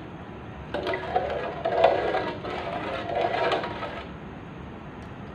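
A spatula stirring a thin coconut-milk and brown-sugar mixture in an aluminium pot, making a run of irregular scrapes, knocks and sloshes for about three seconds before it settles to a low steady background.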